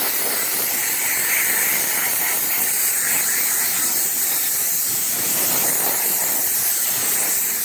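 Compressed air from a compressor tank at about 120 PSI blasting out of an air hose as a loud, steady hiss, used to blow dust out of a socket set.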